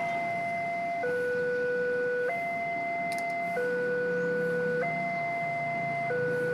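Railway level-crossing warning alarm from the crossing post's loudspeaker: an electronic two-tone signal alternating between a higher and a lower tone about every one and a quarter seconds, warning of an approaching train. A low motorcycle engine hum runs beneath it.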